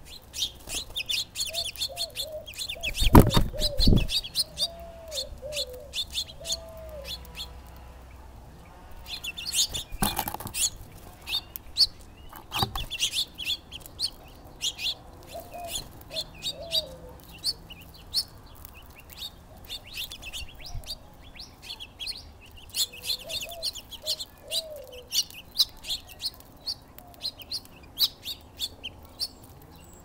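Small songbirds at a seed feeder, house finches and sparrows, chirping in rapid high runs, with a few short groups of lower arched call notes. Several sudden louder knocks or flutters break in, the loudest about three seconds in and others around ten and thirteen seconds.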